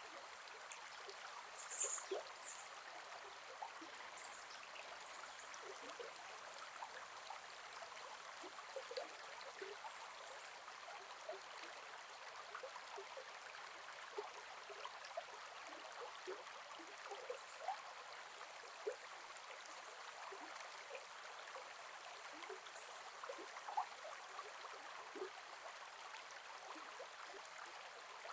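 Gentle forest river flowing: a steady, soft rush of water with many small gurgles and trickles, and a brief high sound about two seconds in.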